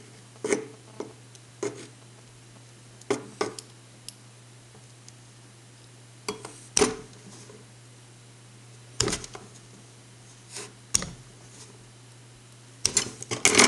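Irregular clicks and light knocks of thin insulated wires and a kitchen knife being handled while wire ends are stripped and twisted together, with a quick cluster of them near the end.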